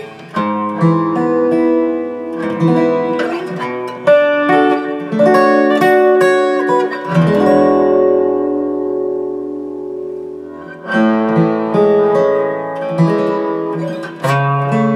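Gibson J-50 acoustic guitar flatpicked through its K&K Mini pickup system: quick runs of single notes and chords moving up and down the neck, with one chord left ringing and fading for a few seconds about halfway through before the picking starts again.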